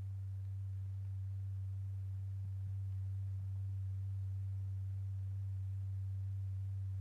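Steady low pure tone, the vibration note exciting a stretched paper diaphragm strewn with lycopodium powder; at this frequency the powder piles rotate anti-clockwise.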